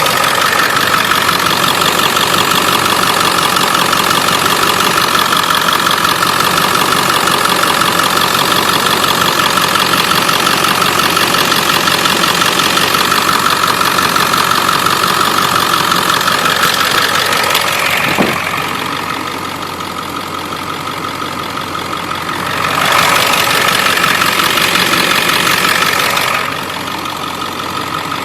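Ford 7.3 Powerstroke V8 turbodiesel idling with a fast, steady tapping/ticking, the sign of a leaking exhaust up-pipe. The sound gets quieter for a few seconds about two-thirds of the way through and again near the end.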